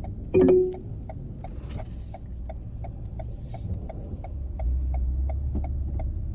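Car turn-signal indicator ticking quickly and evenly, about four clicks a second, over the steady low rumble of the car cabin. There is a brief loud beep about half a second in.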